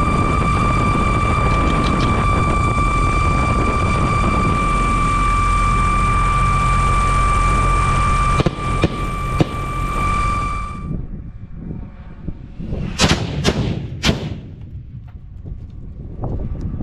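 The all-electric VAPOR 55 MX drone in flight, heard from on board: steady rotor and motor noise with a high whine, which cuts off after about eleven seconds. A few seconds later come three sharp bangs in quick succession, about half a second apart: Shryke munitions detonating at the ground target.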